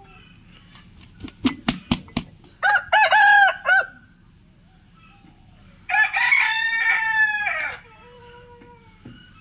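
Rooster crowing twice: a short, broken crow about two and a half seconds in and a longer crow near six seconds. Just before the first crow comes a quick run of sharp claps.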